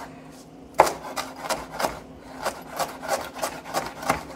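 Chef's knife chopping celery on a wooden cutting board: quick even cuts, about three a second, beginning a little under a second in.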